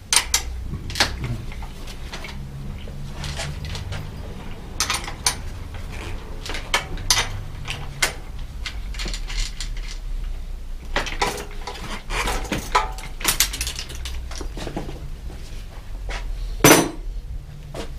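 Metal clinks, clicks and knocks from a bicycle in a repair stand as its rear wheel is taken out, over a steady low hum, with one louder knock near the end.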